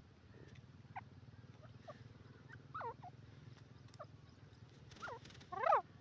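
Grey francolin giving short, soft call notes, each a quick falling or arched whistle, spaced about a second apart, with the loudest, fullest note near the end.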